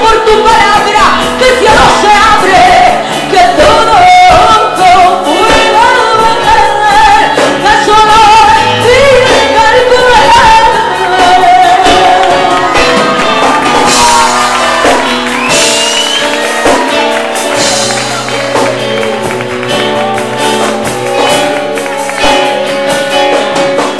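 Live worship song: a woman singing into a microphone over instrumental accompaniment, loud and continuous.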